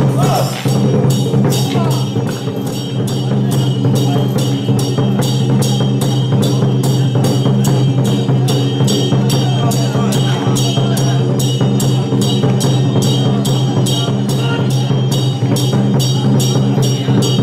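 Chinese temple-troupe percussion of drum, gongs and cymbals, beating a fast, steady rhythm of about three strikes a second over a sustained low ringing tone.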